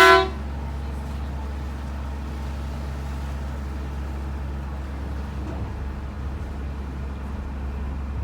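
Steady low engine drone running evenly throughout, with a loud pitched horn blast cutting off just at the start.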